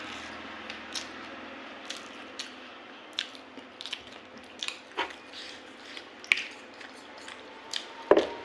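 Close-miked eating sounds: wet chewing and mouth clicks of someone eating rice and curry, irregular and spaced a fraction of a second to a second apart, over a steady background hiss. A sharper knock comes near the end.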